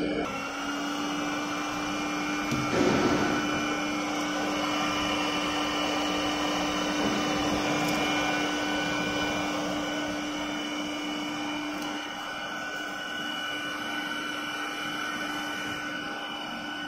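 Hot-air blowers of a BGA rework station running steadily during a removal cycle, a whirring hiss with a steady hum; the hum stops about twelve seconds in.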